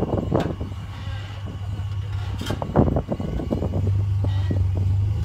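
Off-road 4x4's engine running with a steady low drone that gets louder after about three and a half seconds, with several sharp knocks and thumps, the loudest a little under three seconds in.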